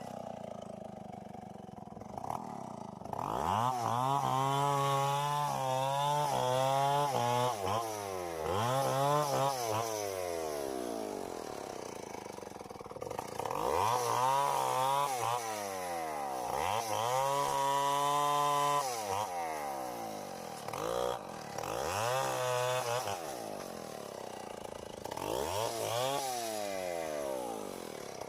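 Tecomec two-stroke chainsaw revved up about seven times, each rev held at full speed for one to four seconds before dropping back toward idle, as it cuts into the wood of an uprooted mango tree.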